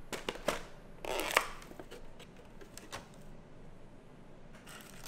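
Styrofoam takeout clamshell being handled and opened on a stone countertop: a few light clicks, then a louder scraping rustle of foam about a second in, with scattered small clicks after.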